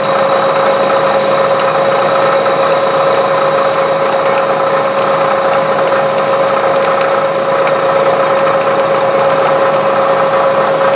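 Metal lathe turning a long steel rod, with a milling machine also running: steady machine noise with a constant whine.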